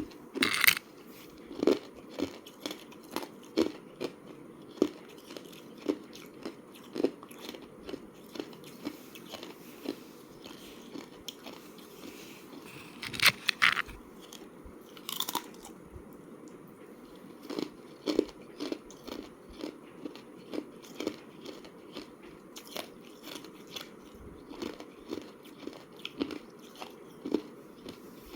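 A person biting and chewing thin slab ice close to the microphone: crisp crunches come about once a second. A few sharper, louder bites snap off fresh pieces near the start and again at about 13 and 15 seconds in.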